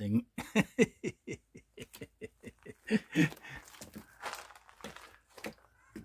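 Cat eating raw fish out of a plastic tub: a quick run of small wet clicks and crunches, about four or five a second, thinning out after about three seconds.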